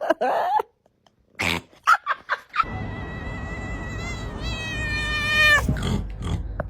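Cat vocalizing: a short call, a few brief yelps, then a long, high-pitched drawn-out cry over a low rumble that drops in pitch just before it breaks off.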